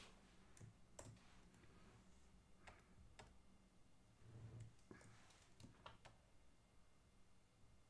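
Near silence broken by faint, irregular clicks and taps from working at a computer, about a dozen of them, with a soft low thump about four and a half seconds in.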